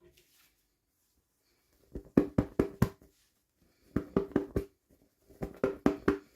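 Quick knocking on a hollow plastic toy package, in three bursts of about five rapid taps each.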